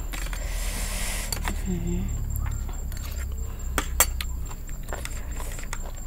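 Eating at a tray of shellfish salad: a metal spoon and shells clink against a stainless-steel tray. There are a few sharp clicks, one about a second and a half in and a quick cluster around four seconds, and a brief closed-mouth hum near two seconds.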